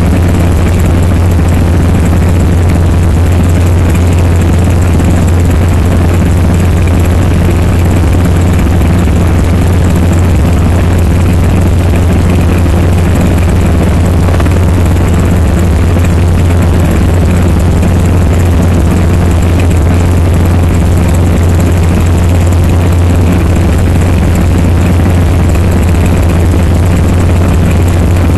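Robinson R22 Beta II helicopter in cruise flight, heard from inside the cabin: a loud, steady drone of its four-cylinder Lycoming piston engine and rotors, dominated by a strong low hum.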